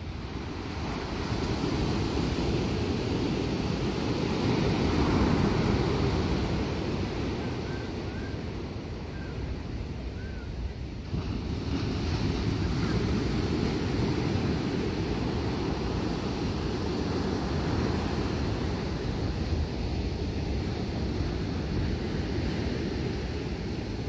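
Ocean surf breaking and washing up a sandy beach, with wind rumbling on the microphone. The waves swell about five seconds in, ease off, and a new one breaks about eleven seconds in.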